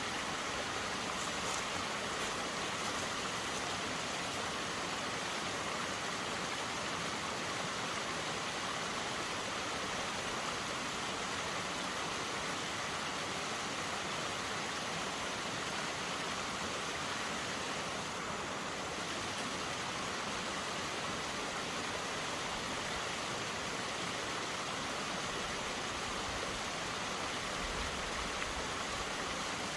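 A steady, even rushing noise with no footsteps, knocks or other distinct sounds in it.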